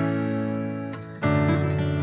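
Background music on acoustic guitar: a strummed chord rings and fades, then a new chord is strummed a little over a second in.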